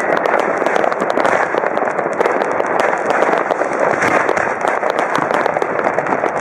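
Fireworks and firecrackers going off in dense, overlapping crackles and bangs, an unbroken barrage of many explosions with no pauses.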